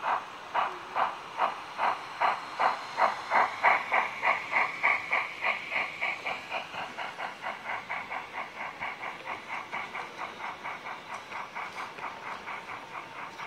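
Gauge 1 (1:32) model steam locomotive, a Märklin BR 89 tank engine, puffing rhythmically from its onboard sound unit as it runs past. The chuffs quicken and are loudest a few seconds in, then fade as the coaches roll by.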